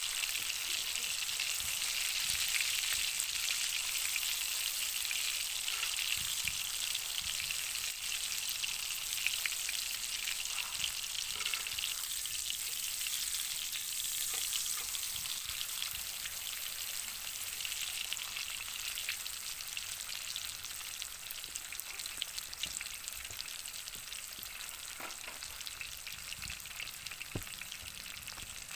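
Wagyu beef steak sizzling in a hot pan, a steady crackling hiss with fine pops of fat that slowly grows quieter.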